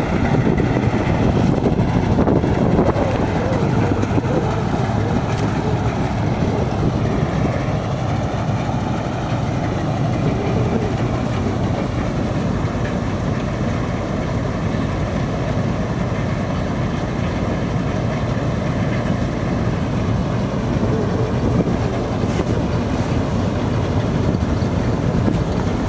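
Yanmar YH700 full-feed combine harvester running, a loud, steady din of engine and machinery.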